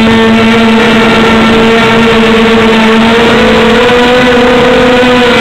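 Small 250mm quadcopter's motors and propellers whining steadily while hovering, heard up close by its own camera, the pitch wavering slightly a little after the middle.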